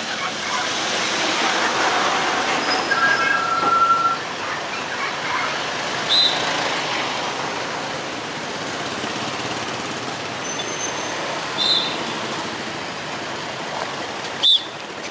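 Busy street traffic heard from a motor scooter in slow traffic: a steady rush of engine and road noise. A brief two-note tone sounds about three seconds in, and three short, high chirps come later, the last near the end the loudest.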